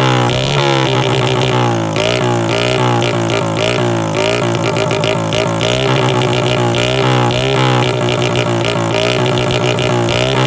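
Custom Honda Monkey's small four-stroke single-cylinder engine, breathing through a Pretty Racing CB400F-style muffler, revved up and down in quick rhythmic throttle blips, a 'call'-style revving.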